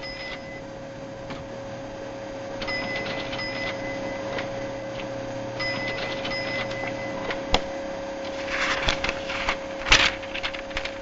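Movie sound effects of a 1950s room-sized computer: a steady electrical hum with two runs of short high beeps, a sharp click, then a burst of mechanical clattering near the end.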